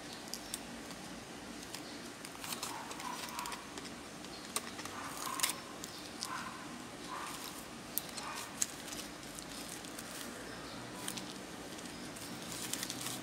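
Scattered small clicks, taps and rustles of plastic phone parts being handled, as the frame and back housing of a disassembled smartphone are lifted, turned and set down on bubble wrap.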